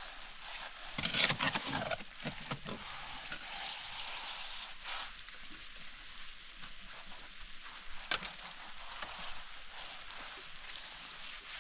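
A steel shovel scraping and scooping wet cement mortar, a gritty rasping that is loudest in a cluster of strokes about a second in. A single sharp knock comes about eight seconds in.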